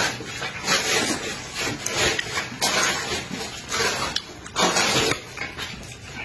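A person eating close to the microphone: a run of loud, noisy chewing and slurping sounds, coming about once or twice a second.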